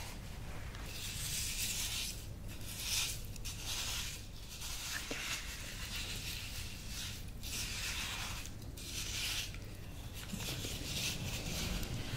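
Granular scrub in a small glass bowl being stirred and scooped, a soft gritty scraping that comes in repeated strokes of about a second with short pauses between them.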